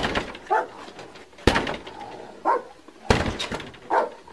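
A door being forced with three heavy blows about a second and a half apart, each with a short ringing tail. A dog barks between the blows.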